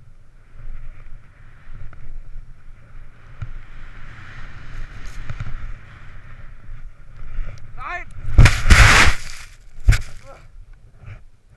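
Skis hissing through powder snow, with wind rumbling on a helmet-mounted action camera. About eight seconds in there is a short yell, then a loud rushing crash as the skier falls into the snow, followed by a couple of knocks.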